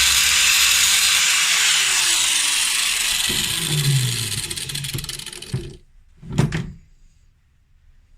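Power grinder grinding a groove into the steel of a winch clutch lever mount; the motor's whine falls in pitch after about a second and a half, and the grinding stops abruptly a couple of seconds before the end. A short loud knock or blast follows soon after.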